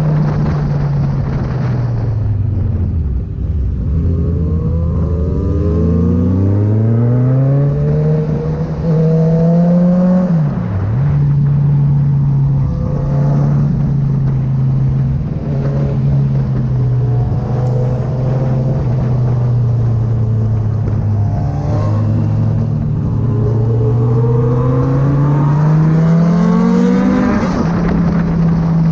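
Kawasaki Z900 inline-four engine through an aftermarket Firetong exhaust, riding along. Its revs sink low in the first few seconds, then climb and drop sharply about ten seconds in. They hold steady for a long stretch, then climb again near the end before dropping back.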